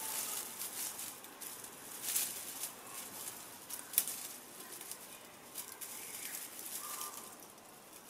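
Irregular soft rustling and light crackling of movement through dry ground cover outdoors, with a couple of faint short chirps, one about seven seconds in.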